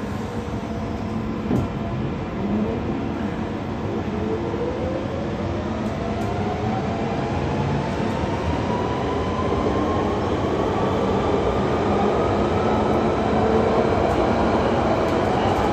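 London Underground Central Line tube train accelerating away from a station, heard from inside the carriage: the traction motor whine rises in pitch over the first ten seconds or so and then levels off, over running rumble that grows steadily louder.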